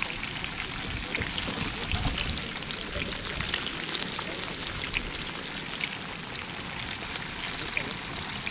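Fish frying in hot oil on a disco griddle: a steady sizzle with many small crackles.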